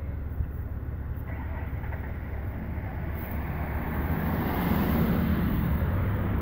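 Road traffic: vehicle engines running at a low steady rumble, with an oncoming pickup truck approaching and its engine and tyre noise growing louder over the last few seconds.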